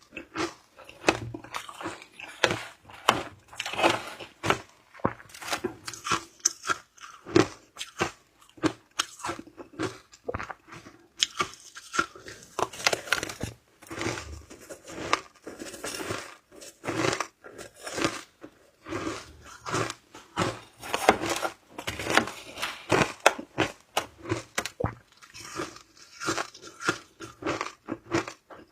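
Someone biting and chewing shaved ice close to the microphone, a dense, irregular run of sharp crunches with short pauses between bites.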